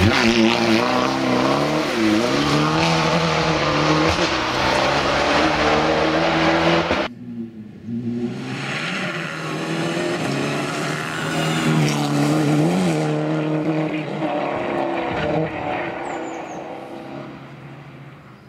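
Fiat Abarth 500 R3T rally car's turbocharged four-cylinder engine at full throttle, its pitch rising and dipping as it changes gear while it passes. About seven seconds in the sound cuts off suddenly; then the car is heard again approaching, loudest about thirteen seconds in, and fading away.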